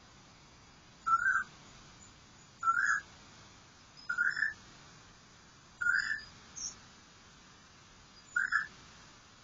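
Asian koel calling: five short rising calls, repeated every one and a half to two and a half seconds.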